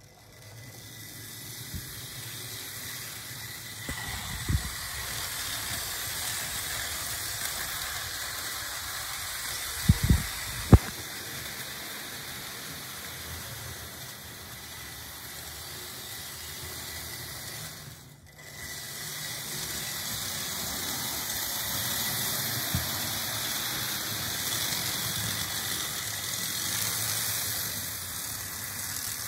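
Märklin model train running on its track: a steady whirring rush from the locomotive's motor and wheels on the rails, with a faint high whine. A few knocks come around 4 and 10 seconds in, and the sound drops out briefly about 18 seconds in.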